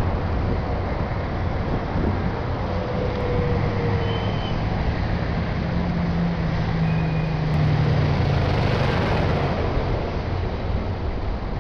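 Heavy military 6x6 trucks driving past close by: a steady low engine rumble mixed with road and tyre noise, the engine note rising a little about six seconds in.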